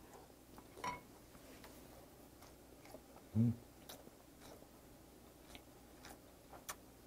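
A person chewing a mouthful of rice and soy-marinated seafood: faint, soft mouth clicks, with a brief low hum about three and a half seconds in.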